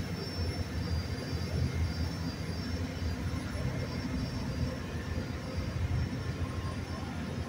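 Boat engine running steadily at low speed, a continuous low rumble.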